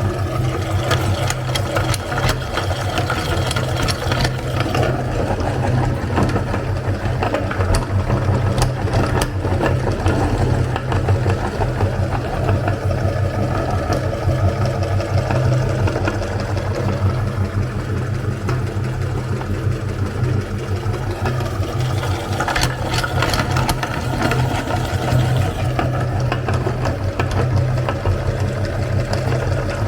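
Electric meat grinder running steadily, its motor humming as it grinds small bars of soap, with scattered crackles as the soap is forced through.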